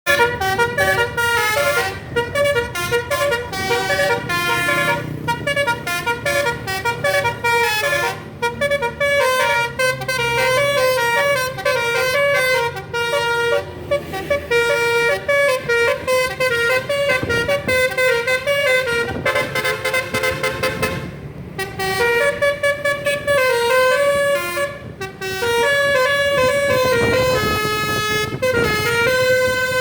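Basuri telolet horn, a multi-tone musical air horn on a bus, playing quick tunes with notes changing several times a second. There are brief breaks about two-thirds of the way through.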